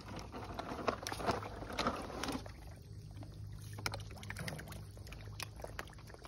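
Bluegill taking worms at the surface of a pond: quick, irregular lip-smacking pops and small splashes as they hit the top of the water.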